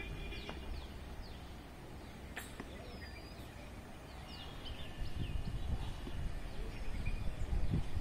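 Small birds calling with short chirps and whistles, over a low outdoor rumble that grows louder and gustier about five seconds in. A single sharp click about two and a half seconds in.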